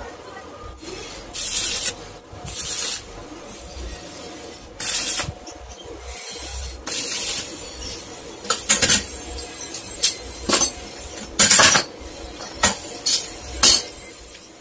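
Arc welder tack-welding joints on a square steel tube go-kart frame: about a dozen short hissing bursts of welding, the first few about half a second long, the later ones shorter and coming faster.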